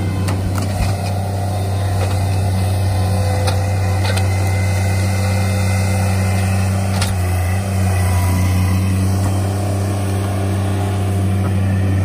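Mini skid steer's engine running steadily under load as it carries a large log in its grapple, a low hum that holds one pitch throughout, with a few light clicks.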